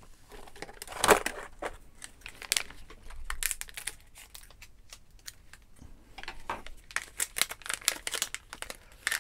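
Plastic packaging bag crinkling and crackling as hands handle it and try to pull it open, in irregular crackles: one sharp crackle about a second in, and a quick run of them near the end.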